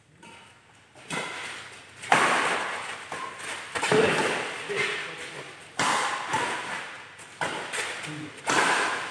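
Sharp hits from a doubles racket rally, about six of them one to two seconds apart, each ringing on with echo in a large hall.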